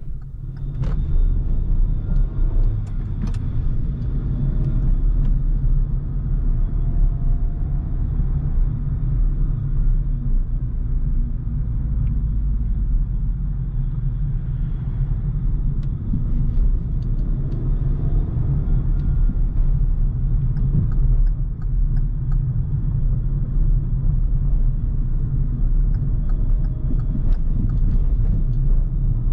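Steady low rumble of a car driving, heard from inside the cabin: engine and tyre noise, with a few faint clicks now and then.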